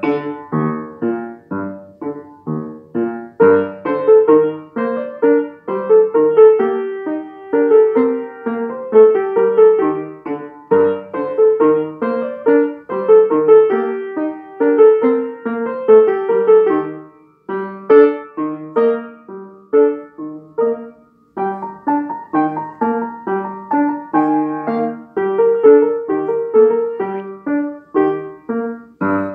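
Upright piano being played by a child: a steady stream of separate notes in both hands, with two short breaks past the middle.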